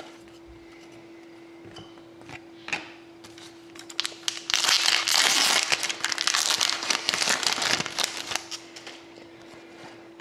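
Foil wrapper of an Upper Deck Artifacts hockey card pack being torn open and crinkled: a loud crackling rustle lasting about three and a half seconds midway, with a few light clicks of cards being handled before it.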